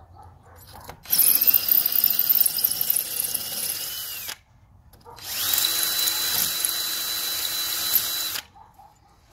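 Cordless 20V drill boring into a brick wall with a small bit, the first, smaller hole before the larger bit. It runs in two bursts of about three seconds each, with a steady motor whine, and a short pause between them.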